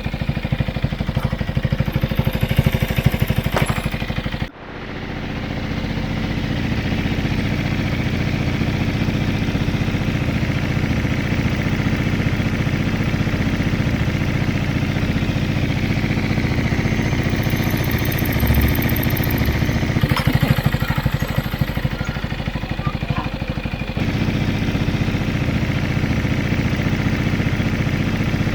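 Benelli Motobi 200 Evo single-cylinder engine idling steadily. The level drops suddenly for a moment about four and a half seconds in, then settles back to the same even idle.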